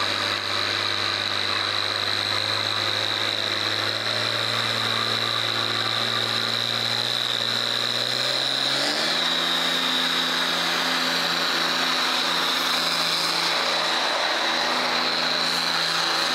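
Diesel pickup truck doing a burnout, its engine held at high revs with a steady high whistle over it and the rear tyres spinning. The engine pitch steps up about halfway through.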